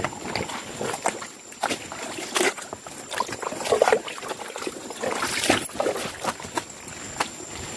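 Footsteps over wet creek stones and through shallow water: irregular scrapes and knocks on rock, with splashes and trickling.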